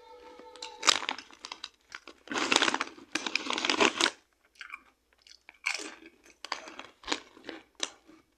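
A person biting and chewing crunchy popped-corn chips (PopCorners kettle corn) close to the microphone: one sharp crunch, then a dense run of crunching and scattered crackles as the chewing slows.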